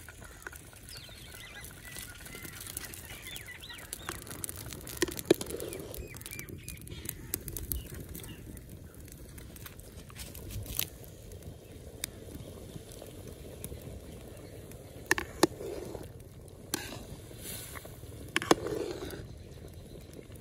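Rice and peas boiling in water in a large metal pot, bubbling steadily, while a perforated metal skimmer stirs the rice and knocks and scrapes against the pot several times.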